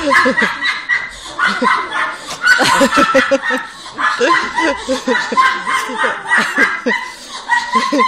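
Audience laughing, several people chuckling in quick repeated bursts, overlapping throughout.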